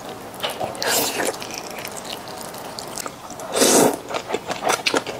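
Close-miked eating: a wet bite into a sauce-glazed grilled eel, then a loud slurp of saucy fried rice noodles a little past halfway, followed by quick, wet, clicking chewing.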